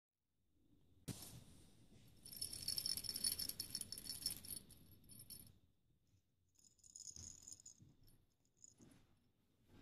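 Bell inside a cat toy ball jingling and rattling as the ball is rolled and batted about. The jingle is loudest for a few seconds from about two seconds in, then comes back in two shorter bursts.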